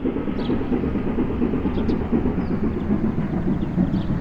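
A vehicle engine running steadily, a low rumble with no change in pace.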